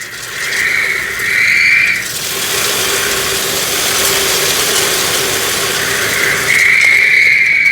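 Industrial roof vacuum with a loud, steady high whine. About two seconds in, a loud rush of air with rattling takes over as the hose draws in material, and it gives way to the whine again near the end.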